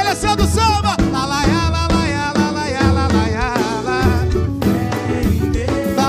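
Live samba band playing: a male lead singer sings a melody over cavaquinho, hand drums and a steady low bass line.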